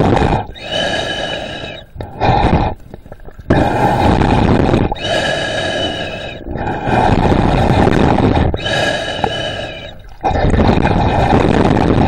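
A snorkeler breathing hard through a snorkel tube, in a slow rhythm of about one breath every four seconds. Each breath has a rough, rumbling half and a hissing half with a whistling ring from the tube.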